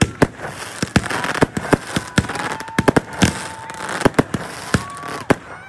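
Aerial fireworks going off: many sharp bangs in quick succession over continuous crackling, with a couple of long whistling tones near the middle.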